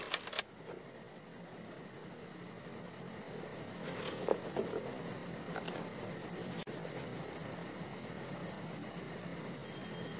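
Crickets chirping, a steady high-pitched trill, with a few sharp clicks in the first half-second.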